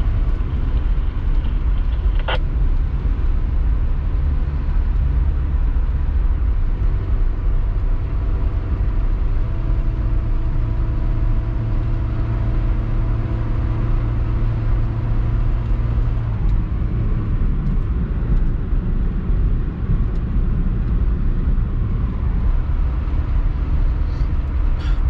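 Car driving at road speed, heard from inside the cabin: a steady rumble of engine and tyre noise, with one sharp click about two seconds in. The engine's hum stands out more clearly for a stretch through the middle.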